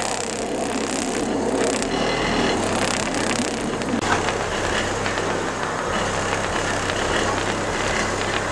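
DC Audio Level 3 10-inch subwoofers in a ported box tuned to 33 Hz, driven hard by an AudioQue 1200 amplifier and playing deep bass notes at high volume, heard from outside the car. The car and the hanging keys are shaking with the bass.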